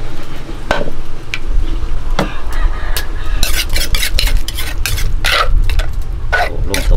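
Metal spoon scraping and clinking against the inside of an earthenware mortar, stirring a wet mixture in quick repeated strokes.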